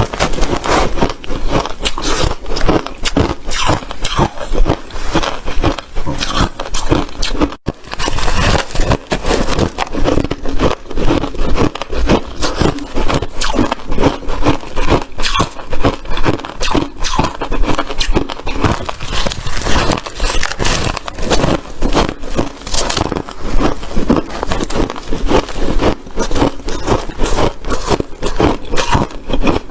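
Ice being chewed close to the microphone: a continuous run of rapid, crisp crunches and crackles, with a brief dropout about eight seconds in.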